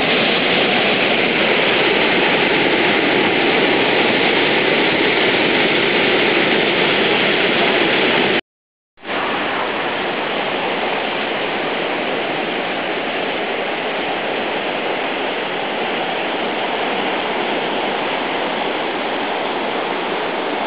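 Swollen, flooding river rushing steadily over a weir. About eight seconds in, the sound cuts out for half a second and then resumes slightly quieter.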